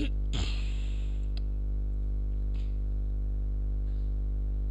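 Steady electrical hum with a buzz of evenly spaced overtones, picked up by the recording microphone. A short hiss comes near the start and a few faint clicks follow.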